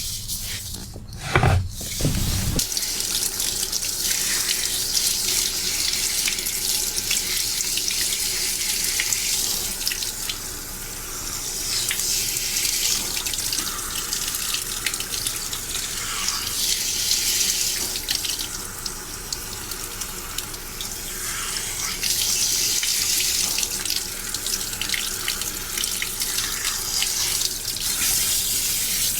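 Water running from a tap at a hair-washing basin as hair is rinsed, a steady rush that swells and eases. A short thump about a second and a half in, just before the flow comes on full.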